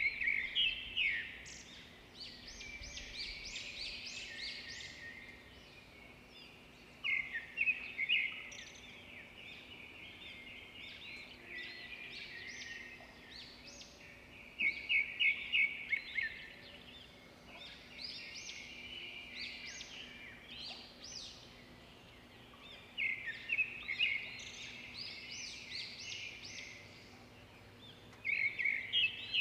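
A bird singing: short phrases of rapid high chirping notes, repeated every several seconds over a faint steady background.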